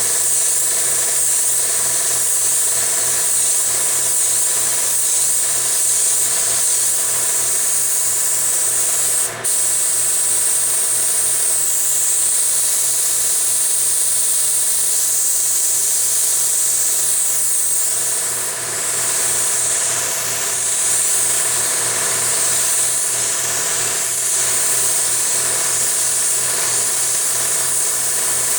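Automotive paint spray gun hissing steadily with compressed air while base coat is applied and flashed off, over a low, even hum. The hiss cuts out for a moment about nine seconds in.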